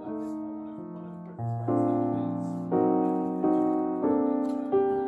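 Background piano music: gentle chords struck about once a second, each note dying away.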